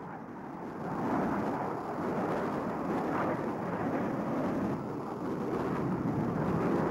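Jet aircraft in flight: a steady rushing engine noise with no distinct tones, swelling a little about a second in and then holding level.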